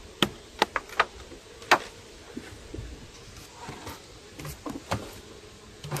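Sharp clicks and light knocks of hive parts being handled as a wooden honey bee hive is opened: the metal outer lid is lifted off and set aside, and a hive tool works at the wooden inner cover. A cluster of knocks falls in the first two seconds, with a few lighter ones later.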